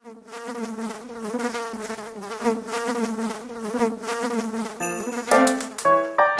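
Buzzing of a flying insect, a steady wavering buzz lasting about five seconds. Then the music comes in with bell-like notes and sharp percussive clicks.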